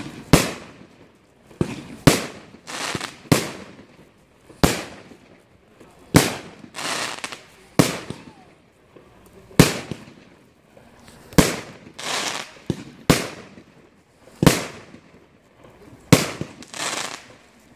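Aerial fireworks bursting one at a time: about a dozen sharp bangs, spaced a second or two apart, some followed by a short crackling hiss.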